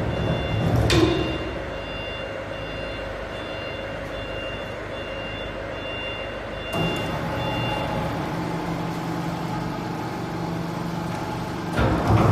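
Woodworking laminating-line machinery with a panel turnover machine running with a steady mechanical hum. A high, repeating beep sounds over roughly the first two-thirds, and there are thumps about a second in and near the end.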